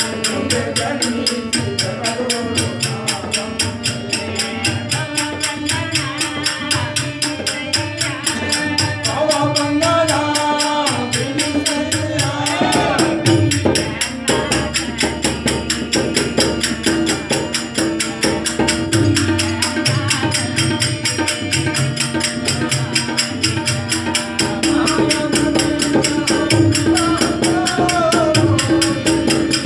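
Devotional bhajan music: small brass hand cymbals (tala) struck in a steady, fast beat with tabla and a harmonium drone, and voices singing in places.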